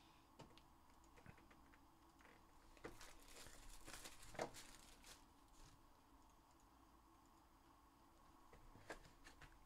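Faint crinkling and tearing of clear plastic wrap being pulled off a trading card box, among soft clicks and taps of the box being handled; the loudest rustle comes about four and a half seconds in.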